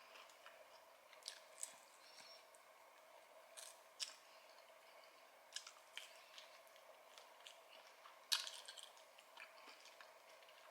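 Faint close-up chewing of food, with scattered soft crunches and wet mouth clicks, the loudest about eight seconds in, over a faint steady hum.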